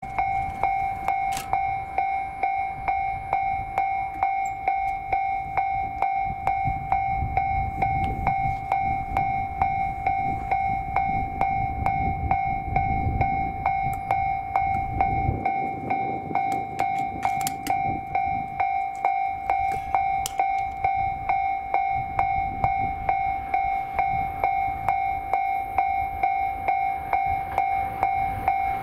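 Railway level-crossing warning bell ringing, an even, repeating electronic clang about twice a second, while a train approaches; a low rumble runs underneath.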